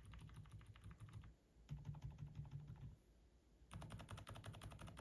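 Fast typing on a 104-key keyboard with PBT keycaps, fitted with Kailh Deep Sea Pro Whale silent tactile switches. The faint keystrokes come in three quick runs with short pauses between them.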